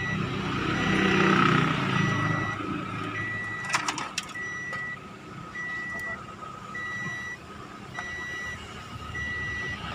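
Electronic warning beep repeating evenly, about one beep every 1.2 seconds, over a low rumble that is louder in the first few seconds, with a few sharp clicks about four seconds in.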